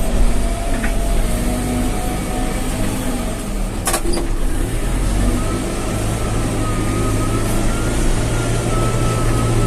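Backhoe loader's diesel engine running steadily, with a thin whine that comes in about five seconds in. A single sharp click sounds about four seconds in.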